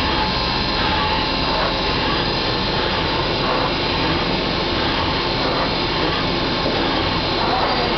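Fanuc CNC drilling and tapping machine running: a steady machine noise with several thin, high steady tones and no sharp strokes.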